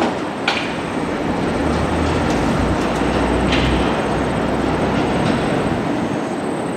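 JR Kyushu KiHa 200 diesel railcar running by, a steady rumble of engine and wheels on rail, with a low hum for a couple of seconds and two sharp clicks about three seconds apart.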